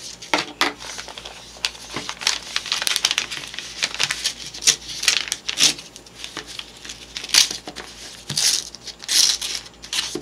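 An envelope being torn open by hand and its paper crinkled and crumpled: irregular rustling and ripping, with the loudest crinkles coming in the second half.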